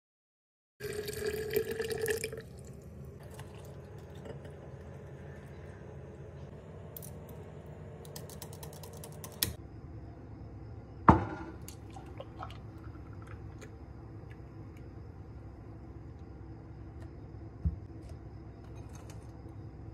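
Thick blended lemonade pouring and splashing into a glass carafe, loudest for the first couple of seconds. Later it is poured into a glass tumbler, with a sharp glass knock about halfway through and a softer one near the end.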